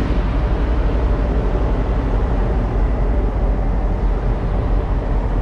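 Steady low drone of running diesel engines around parked tractor-trailers, with a rushing noise over it and no break or change.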